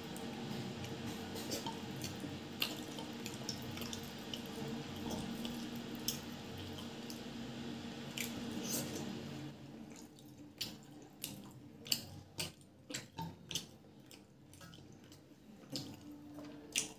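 Hand squishing cooked rice into chicken curry on a plate, a steady wet squelching with small clicks. About ten seconds in it gives way to eating sounds: chewing and wet mouth clicks, one at a time and sparser.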